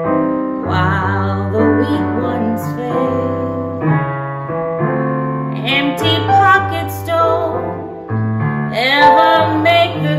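A woman singing a slow jazz ballad to piano accompaniment, her held notes wavering in a vibrato over steady low piano notes.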